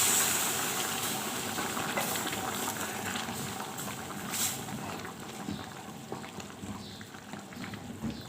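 Pot of fried rice and spices hissing and bubbling just after boiling water has been poured in. The sizzle dies down steadily, with a brief clink about four and a half seconds in.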